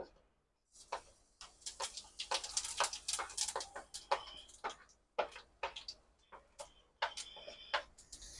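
Cumin seeds crackling and popping in hot oil in a kadai: a fast, irregular run of small pops starting about a second in.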